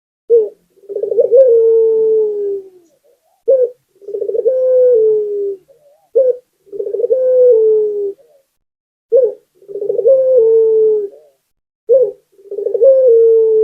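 Barbary dove (Indonesian 'puter') cooing: a short note followed by a longer coo that drops a step in pitch, the pair repeated about every three seconds, five times.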